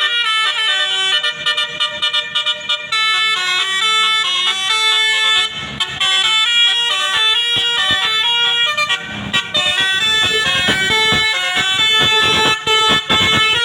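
Bus musical air horn (telolet, Basuri type) playing a fast tune of clear horn notes that step quickly from pitch to pitch, with a run of knocks underneath from about nine seconds in.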